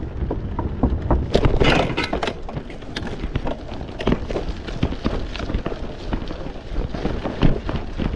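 Kross Esker 2.0 gravel bike riding over rough ground: a constant run of knocks and rattles as it jolts over bumps, over a low rumble, busiest between about one and two seconds in.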